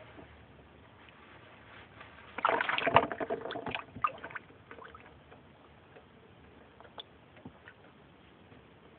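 Splashing and scuffling in shallow water for about two seconds, from an American bullfrog lunging at and seizing a live mouse, followed by a few faint ticks.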